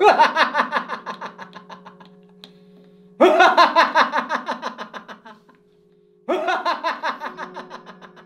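An old man laughing in three bouts, each a fast run of 'ha-ha-ha' that starts loud and trails off, over a steady low drone of background music.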